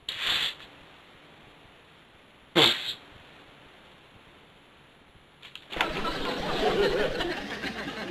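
Two short, sudden comic noises about two and a half seconds apart, then from about two-thirds of the way in a long, loud comic sound.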